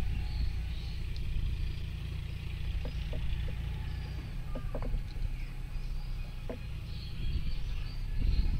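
Outdoor ambience at a pond: a steady low rumble, like wind on the microphone, with faint high chirps and a few small ticks above it.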